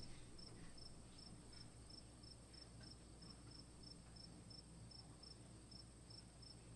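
Near silence with a faint high chirp repeating evenly, about three times a second: a cricket chirping, over a steady faint hiss.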